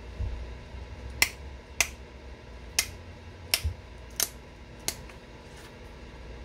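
Flintknapping: sharp clicks of stone as flakes are taken off the edge of a stone projectile point, seven in all at uneven intervals of roughly one a second, two of them close together near the middle.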